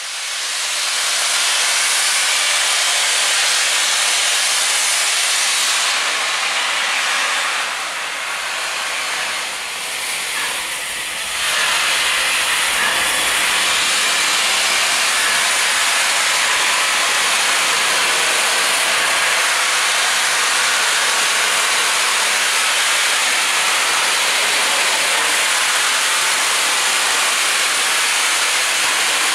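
Steady, loud hiss of steam escaping from Southern Railway Battle of Britain class Bulleid pacific steam locomotive 34067 Tangmere while it stands at the platform. There is no exhaust beat. The hiss eases for a few seconds about a third of the way in, then comes back just as strong.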